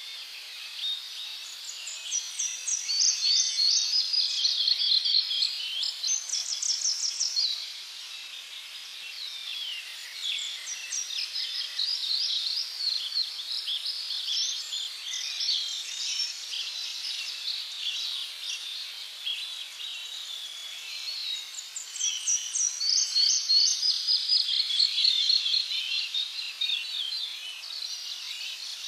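Tropical birds singing in fast, repeated chirping trills, in three louder bouts, over a steady high hiss of insects.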